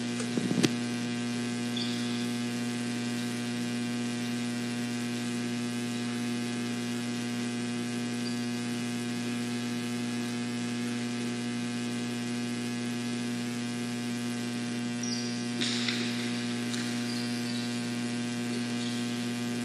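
Steady electrical mains hum with a stack of overtones on the recording's audio, unchanging throughout. A faint click comes about half a second in, and a few faint short noises follow near the end.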